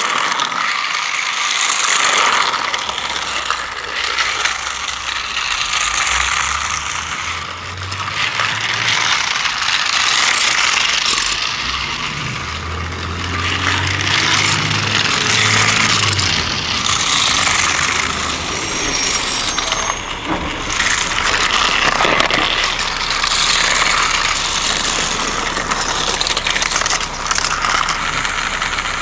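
Battery-powered toy car running along a flexible plastic race track: a continuous mechanical rattle of its small motor and wheels over the track segments, swelling and fading every few seconds.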